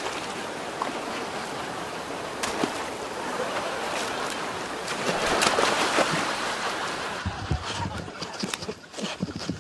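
Creek water rushing over a small waterfall, with splashing as a man scoops water up from the stream onto himself, loudest about five to six seconds in. Near the end the water gives way to scattered crackling and rustling of dry brush.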